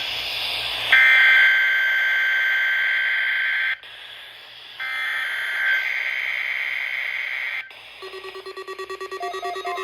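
NOAA Weather Radio Emergency Alert System (SAME) data header received over the radio: two long, screechy digital bursts with a short break between them, over radio hiss. Near the end a rapidly pulsing electronic beeping tone follows.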